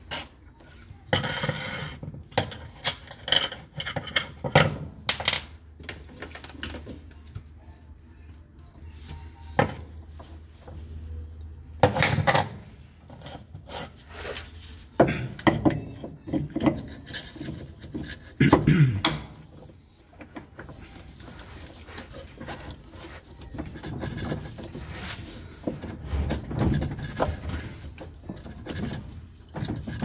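Handling noises of washing-machine drive parts: irregular clicks, knocks and rubbing of plastic and metal as gloved hands work a white plastic part on the splined transmission shaft and fit the drive pulley, with a few louder knocks.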